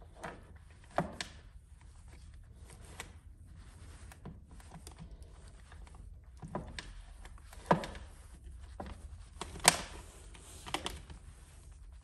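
Scattered small clicks and taps of wires, crimp terminals and plastic parts being handled as an air pressure switch is wired into a portable compressor, the two sharpest about two seconds apart in the second half, over a faint low hum.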